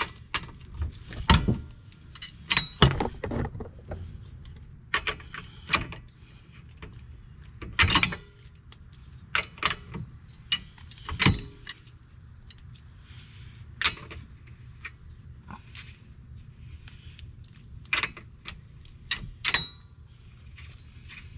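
Irregular metal clanks and knocks of hand tools against steel suspension and hub parts, some ringing briefly, while a car's drive axle is worked loose from the hub.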